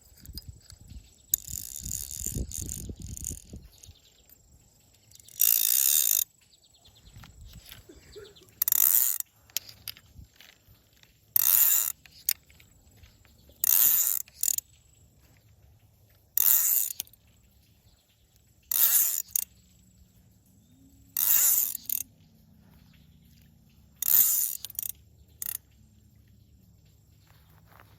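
A fishing reel's ratchet clicking in short, loud bursts, about eight times at roughly two-and-a-half-second intervals. A stretch of lower handling noise comes first.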